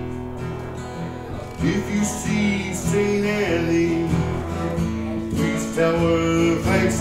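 Live band music with strummed guitar, a bass line underneath, and a held, wavering melody line over it; it gets louder about a second and a half in.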